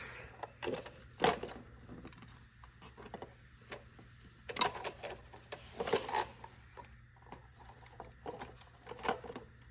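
Scattered light clicks and knocks, a few louder ones about a second in, at four and a half seconds and at six seconds, over a faint steady hum.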